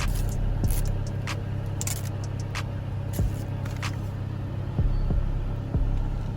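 Nissan 350Z's 3.5-litre V6 idling steadily, with scattered light clicks and scrapes of a trim piece being pressed onto the steering wheel.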